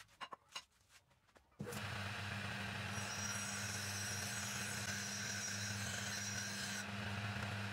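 A homemade metal lathe switches on about one and a half seconds in, its motor running with a steady hum. From about three seconds in, a flat hand file rasps against the spinning steel shaft for about four seconds, then stops while the lathe keeps running.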